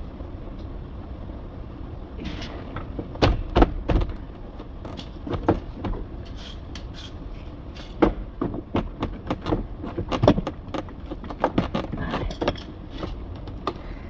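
Irregular sharp clicks, knocks and rattles of a 2011 Audi A5's plastic door trim panel being pulled and worked loose from the door, its retaining clips popping free, over a steady low background noise.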